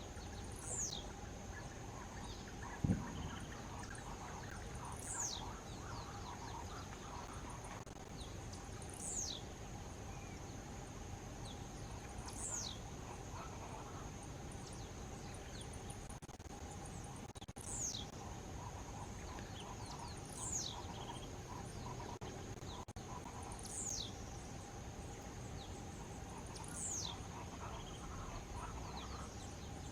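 Blue-black grassquit (tiziu) singing its short song, a single quick note sweeping sharply down in pitch, repeated about every three to four seconds, nine times in all. A steady high insect drone runs underneath, and a brief thump sounds about three seconds in.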